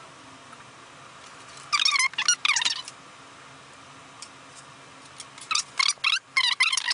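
Knife blade squeaking as it cuts through pink extruded foam in short strokes: a group about two seconds in, then a longer run from about five seconds on.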